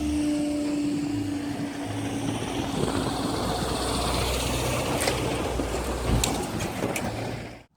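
Train passing over the level crossing: a steady engine drone for the first couple of seconds, then an even rolling rush with a few sharp clicks of wheels over the rail joints. The sound cuts off abruptly just before the end.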